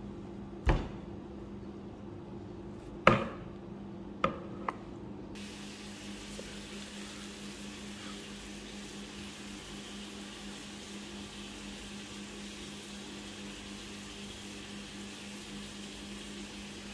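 Metal spoon knocking against a glass mixing bowl four times in the first five seconds, the last two close together, over a steady low hum. After that only the hum and a faint steady hiss remain.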